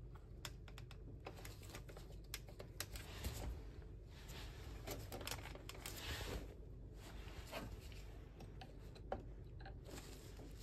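Faint scattered small clicks and brief rustles of gloved hands handling electrical cables and plastic terminal fittings inside a boiler casing.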